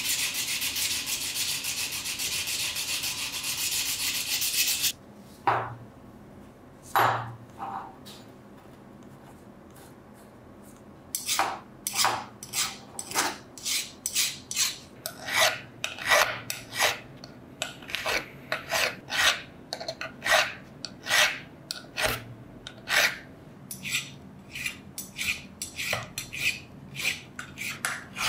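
Hand file scraping across the steel jaw of a pair of pincers in separate strokes, about two a second, over the second half. It follows a few seconds of fast, continuous rubbing on the metal that stops suddenly about five seconds in, and a near-quiet stretch with a few scattered strokes.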